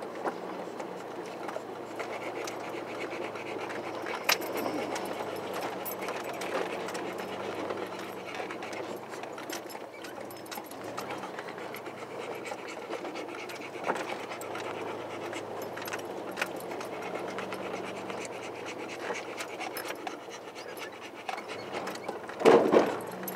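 Four-wheel-drive vehicle crawling along a dirt off-road trail: the engine runs low and steady under a rumble of tyres on dirt, with small knocks and rattles from the body. A loud thump comes near the end.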